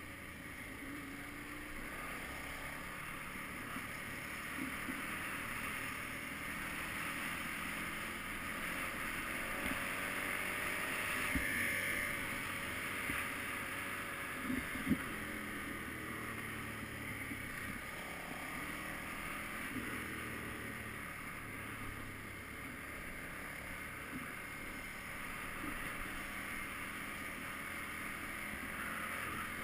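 KTM 990 Adventure's V-twin engine running under way over a dirt track, mixed with wind noise on the microphone. Two brief sharp knocks stand out in the middle.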